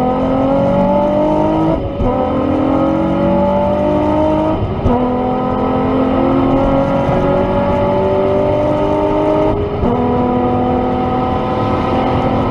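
Nissan 350Z's 3.5-litre V6 pulling hard under full acceleration, heard from inside the cabin. Its pitch climbs steadily in each gear, and it is broken by three quick upshifts, about two, five and ten seconds in, where the sound dips briefly and comes back lower.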